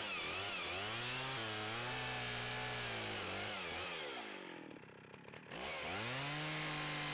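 Stihl chainsaw cutting the end off a wooden plank. The engine note rises and falls as the chain bites, sinks and nearly fades about four and a half seconds in, then picks up again and holds steady.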